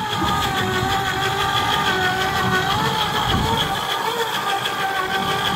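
Electric deep-drop fishing reel's motor running steadily, winding line up from about 1,400 feet down. It makes a steady hum of several high, level tones.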